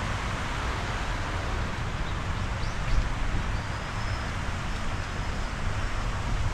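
Steady outdoor wind rumble on the microphone over a hiss of background noise, with a few faint high bird chirps about two and a half to four seconds in.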